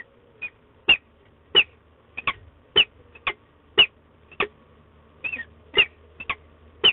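Peregrine falcon calling close by: a series of short, sharp calls, about two a second, some in quick pairs.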